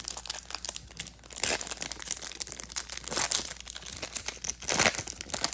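A foil wrapper of a 2022 Bowman hobby baseball card pack being torn open and handled: dense crackling and crinkling, with louder rustles about one and a half, three and nearly five seconds in.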